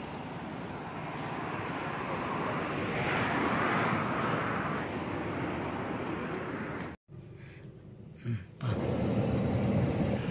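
Steady outdoor street noise, a hiss and rumble that swells for a couple of seconds in the middle. After a sudden cut about seven seconds in, the low road noise of a car driving, heard from inside the cabin.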